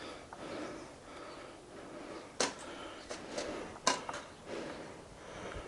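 A few sharp clicks or knocks, the two loudest about two and a half and four seconds in, over uneven rustling.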